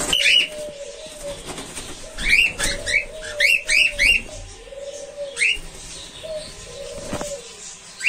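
Cockatiels calling in short, high chirps, with a quick cluster of about six between two and four seconds in and single calls around it. Under them is a low, arching cooing, typical of doves.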